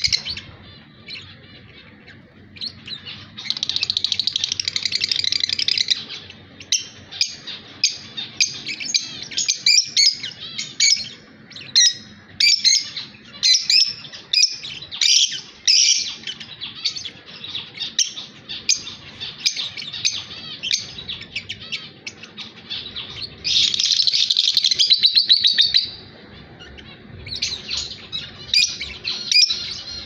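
Caged lovebirds chattering: fast, high, scratchy chirps in quick runs. Two longer unbroken bouts of chatter come about three seconds in and again about four-fifths of the way through.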